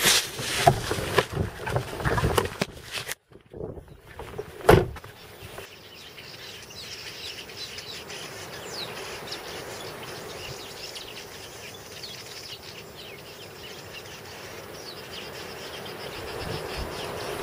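Camera handling noise, with rubbing and knocks for about three seconds. After a cut and one thump comes a steady outdoor background with faint bird chirps and insect sounds.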